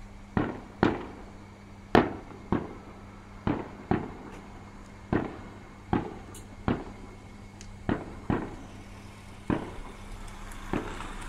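Aerial firework shells bursting one after another: about fourteen sharp bangs with short decaying tails, spaced irregularly a second or less apart, the loudest about two seconds in.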